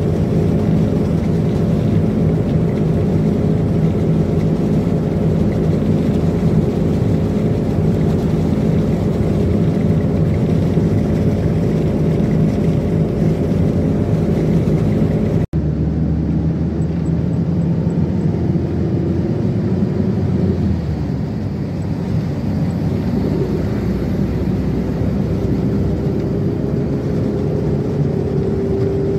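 Steady running noise of a moving vehicle, a low hum with a noisy rumble. The sound changes abruptly about halfway through, and near the end a whine rises in pitch as it speeds up.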